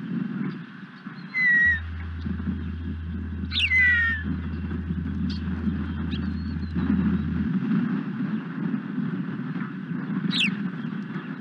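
High whistled bird chirps, a few at a time, several sweeping sharply down in pitch, over a steady low rumble. A loud low hum comes in about a second and a half in and cuts off about six seconds later.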